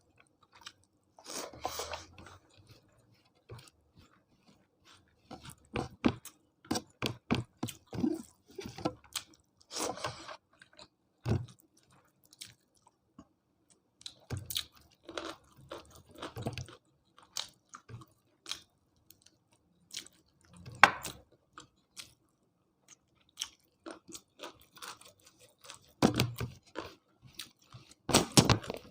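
A person chewing and crunching food close to the microphone: irregular wet mouth clicks and crunchy bites come in clusters, with short lulls between mouthfuls.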